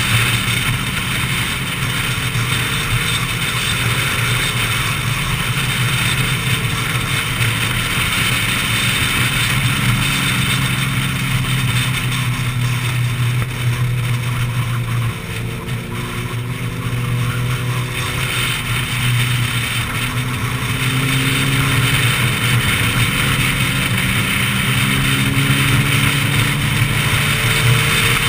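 Sport motorcycle engine heard from on board at speed, its pitch rising and falling with the throttle through a run of curves, over a steady hiss of wind and road noise. It eases off briefly about halfway through.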